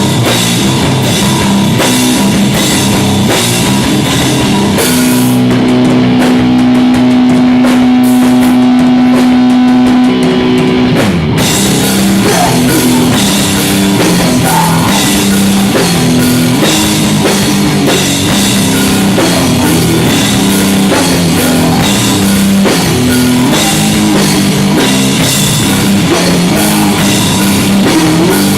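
Live rock band playing loud, with electric guitar, bass and drum kit. About five seconds in the drums drop out while one low note is held for about six seconds, then the full band comes back in.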